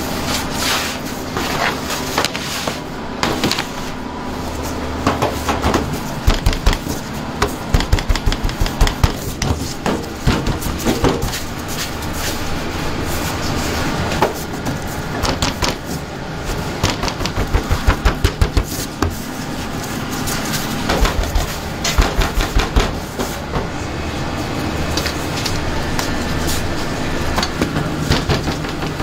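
Runs of quick thumps and slaps as bread dough is handled and slapped down on a floured steel work table, over a steady background hum of bakery machinery.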